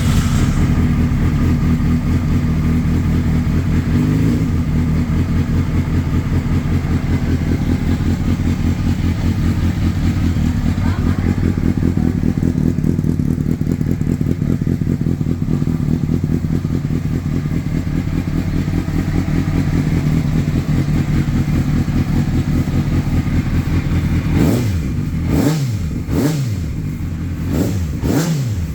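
Honda CBR600RR's inline-four engine idling steadily. About four seconds before the end, the throttle is blipped several times in quick succession. The engine is running after its hard-starting fault was cured with a replacement starter motor.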